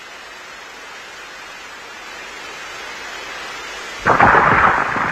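Cartoon sound effect: a steady hiss that slowly grows louder, then about four seconds in a sudden loud crash of rocks and rubble falling, which crackles and fades out over about a second.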